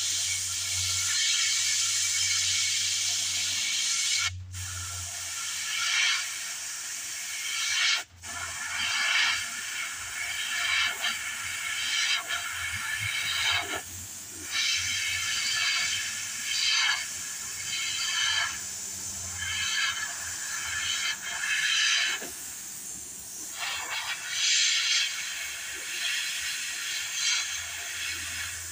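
Airbrush spraying paint: a steady hiss for the first several seconds, then broken into short stretches of a second or two as the trigger is pressed and released.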